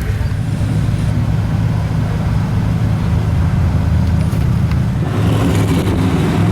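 Car engine running steadily at low revs, a constant low-pitched drone, with a little more noise added about five seconds in.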